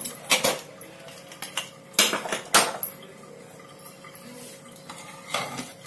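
Pressure cooker lid being twisted free and lifted off once the pressure has gone down, giving a few sharp metal clanks and scrapes; the loudest two come a little after two seconds in.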